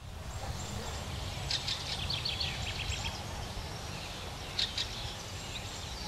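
A flock of fieldfares calling in flight: quick series of short, harsh chack notes, about one and a half seconds in and again near five seconds, over a low steady rumble.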